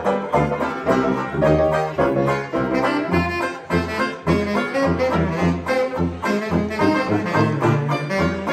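Small 1920s-style hot jazz band playing: saxophone carrying the melody over steady tuba bass notes and banjo chords.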